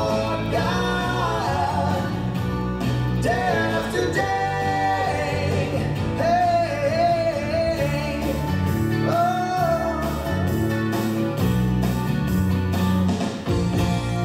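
A recorded song with a singer over guitar, bass and a steady beat, played back for puppets to lip-sync to.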